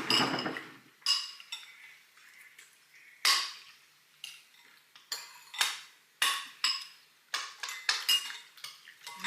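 A spoon clinking against a soup bowl as someone eats, about a dozen irregular taps, each with a short high ring.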